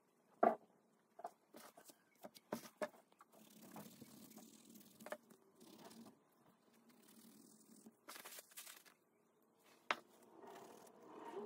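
Hands handling a leather wallet piece: a sharp knock about half a second in, a run of small clicks, then soft rubbing as a wooden-handled tool is worked against the leather, a short scrape and another click near the end.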